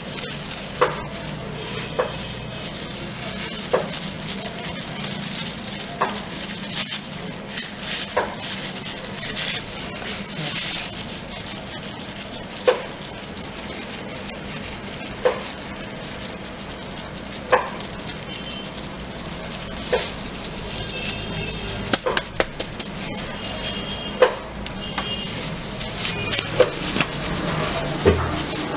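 Block of cheese being grated on a flat hand grater: a steady scraping hiss, with a sharp tap every couple of seconds.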